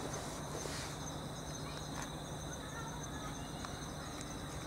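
A steady chorus of insects chirring in several high, pulsing trills, with a few soft clicks scattered through it.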